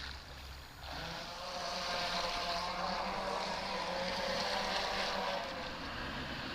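Electric motor of an NDQ PX-16 radio-controlled boat whining as it runs on the water. The whine dips briefly in the first second, then comes back up and holds steady.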